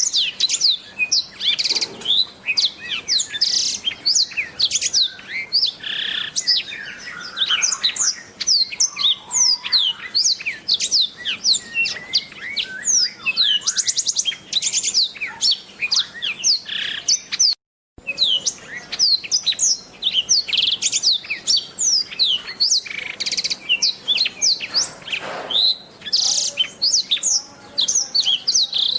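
Black-throated canary (blackthroat) singing a continuous, rapid warbling song of quick high chirps, trills and down-slurred notes, broken once by a brief silent gap about two-thirds of the way through.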